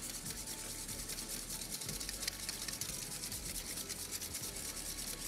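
Pepper grinder being twisted to grind black pepper, a steady run of rapid, even grinding clicks.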